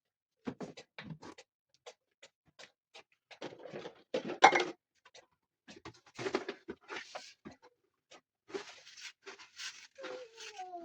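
Irregular knocks, clatters and scraping, like objects being handled and moved, loudest about four seconds in, with a short call falling in pitch near the end.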